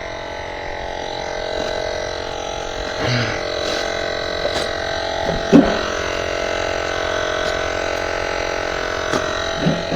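Cordless electric tire inflator running steadily, pumping up the e-bike's tire. It makes an even motor hum, with a couple of short knocks, the loudest about five and a half seconds in.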